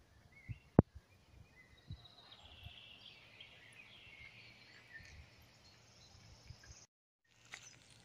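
Quiet woodland ambience with faint birdsong chirping, a single sharp click about a second in, and scattered soft low thumps. The sound cuts out completely for a moment near the end.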